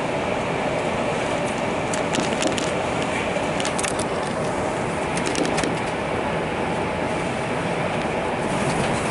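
Steady running noise of a moving vehicle heard from inside the cabin, with a few short clusters of light clicks or rattles about two, four and five and a half seconds in.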